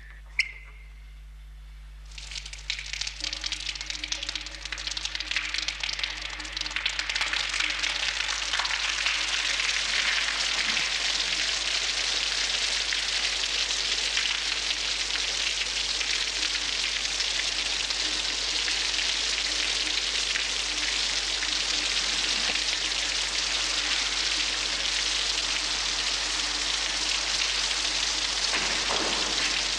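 Shower heads spraying water in a tiled shower room: after a single sharp click, the spray comes on about two seconds in and builds to a steady hiss.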